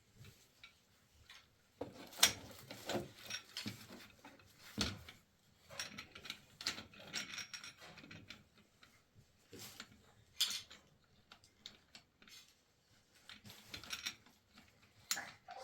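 Irregular clicks, knocks and rattles of hard objects being handled, with no steady rhythm.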